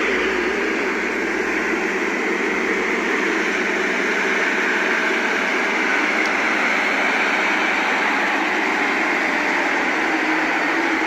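Engine of an earthmoving machine running steadily while grading and digging soil: a continuous, even drone with no breaks.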